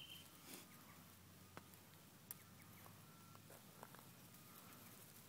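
Near silence, with a few faint scattered ticks over a low background hiss.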